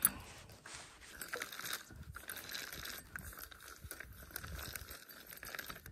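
Spincast fishing reel being cranked steadily, a faint gear whir with fine clicking as the lure is retrieved.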